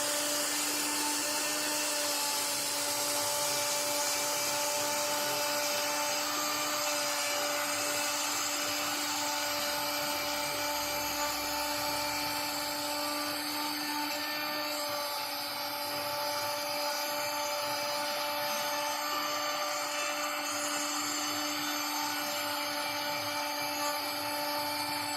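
CNC router spindle running steadily with a high whine, a conical engraving bit cutting into solid ash wood.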